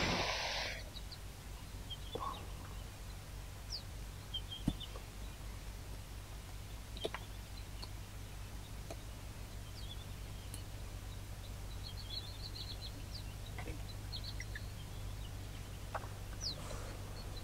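Outdoor bush ambience: scattered short, high bird chirps over a steady low hum, with a few faint clicks.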